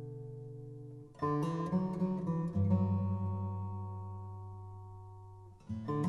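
Background music on acoustic guitar: a strummed chord rings out and fades. Fresh chords are strummed about a second in and again near the end.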